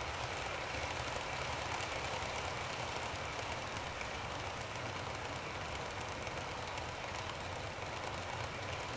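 Model train wagons rolling past on the track: a steady rolling rumble of wheels on rails, with faint light clicking.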